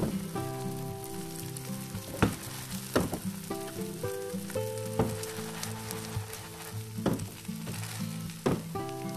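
Bánh xèo batter frying in hot oil in a pan, a steady sizzle broken by about six sharp clicks, over background music with a stepping melody.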